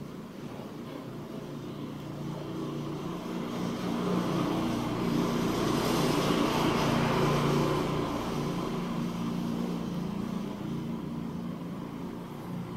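A motor vehicle passing by, its engine and road noise swelling to a peak about six seconds in and then fading away, over a steady low hum.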